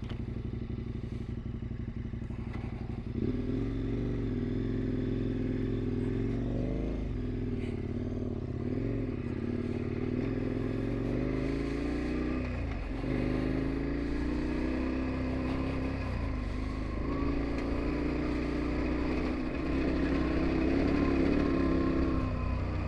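KTM dual-sport motorcycle engine running on a dirt ride. It holds a steady note for about three seconds, then pulls harder, and its pitch dips and climbs again several times as it is ridden.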